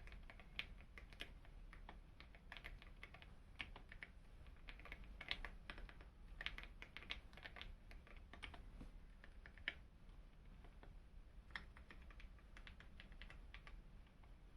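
Faint typing on a Monsgeek M1 mechanical keyboard with lubed Akko V3 Cream Yellow linear switches and Akko Starry Sky keycaps: irregular runs of quick keystrokes, with a short pause about two-thirds of the way in.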